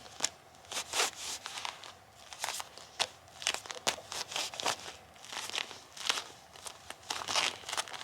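Bilpearl rubber gloves rubbed and pressed against each other, giving an irregular run of short sticking and rubbing sounds, more than a dozen in a few seconds.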